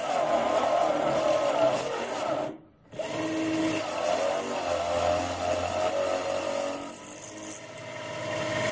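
Small 775 DC motor of a lathe toolpost drill running at 18 volts while a 5 mm stub drill cuts a cross hole into mild steel tubing, drawing about 4 amps under the load. The sound breaks off sharply for a moment about two and a half seconds in, then carries on steadily.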